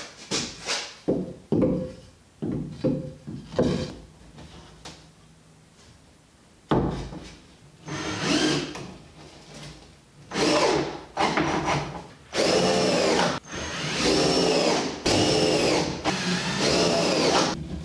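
A few light knocks of wooden strapping being handled and set in place, then a cordless drill driving screws to fasten the strapping inside the corner of an OSB box, in several short bursts that each spin up and wind down.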